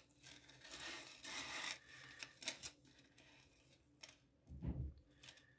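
Tangled metal jewelry chains rubbing, rustling and clinking as they are handled and pulled apart on a wooden tabletop, with scattered small clicks and a low thump about four and a half seconds in.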